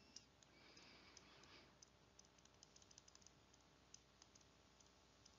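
Near silence with faint, irregular clicks of a stylus tapping and writing on a tablet screen.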